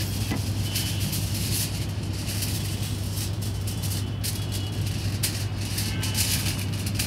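Aluminium foil crinkling as a sheet is handled and folded, in irregular bursts over a steady low hum.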